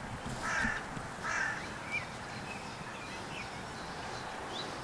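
A crow cawing twice, two harsh calls about a second apart, over a faint steady outdoor background.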